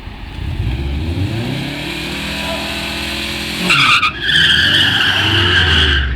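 A car engine revving, its pitch climbing for the first few seconds under hard acceleration. Then, just before four seconds in, loud tyre squeal starts and holds as a steady high screech.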